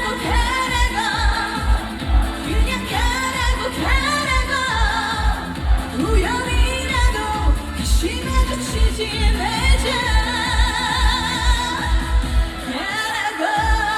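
Trot pop music in an instrumental break: a wavering lead melody over a steady kick-drum beat.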